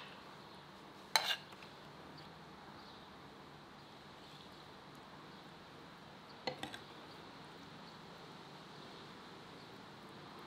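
Metal cutlery clinking against an earthenware plate while food is served: one sharp clink about a second in, then a few lighter taps about six and a half seconds in.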